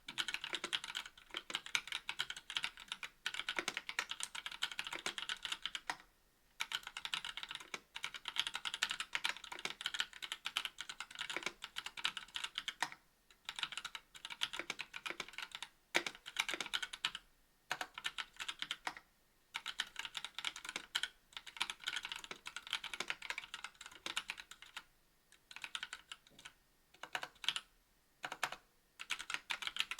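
Typing on a KBD67 V2 MKII mechanical keyboard with stock NovelKeys Cream linear switches, a brass plate and GMK keycaps: fast runs of keystrokes broken by short pauses every few seconds.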